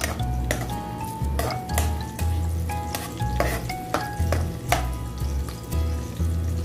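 A metal spatula scrapes and knocks against a wok in repeated strokes, about one a second, as it stirs sliced onion and garlic frying in a little oil, with a light sizzle underneath.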